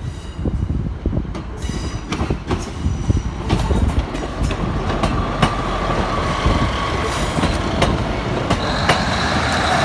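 Class 153 diesel railcar moving over the level crossing: a low rumble with sharp wheel clicks over the rail joints, and a steady high wheel squeal coming in about halfway through.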